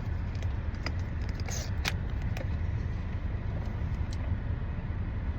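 Steady low rumble of a car idling, heard from inside the cabin, with a few short clicks.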